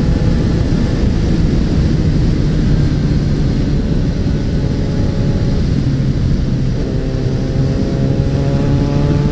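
Suzuki Bandit 650N inline-four motorcycle engine running steadily under heavy wind rush on the bike-mounted microphone, then rising in pitch from about seven seconds in as the bike accelerates.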